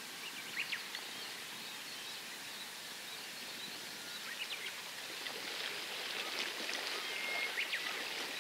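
Faint outdoor ambience by calm sea water: a steady soft hiss of wind and water that swells a little in the second half, with a few faint short high chirps.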